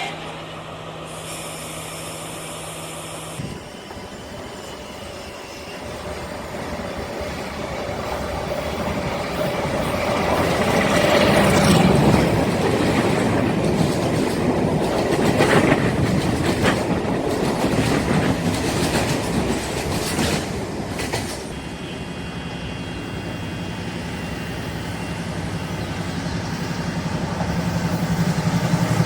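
A train running past on the rails, its wheel and rail noise building to a peak, with knocks and clatter over the rail joints. Near the end a steady diesel engine drone grows louder.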